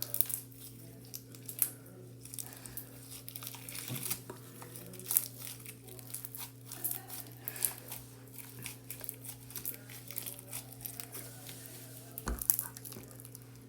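Bingsu slime being squeezed and worked in the hands, crackling and popping in quick irregular clicks. The slime is a little overactivated.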